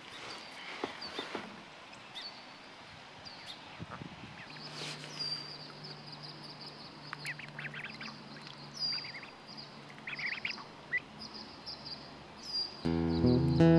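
Mallard ducklings peeping over and over, short high peeps, with a few quicker clusters of calls in the middle. Acoustic guitar music comes in at the very end.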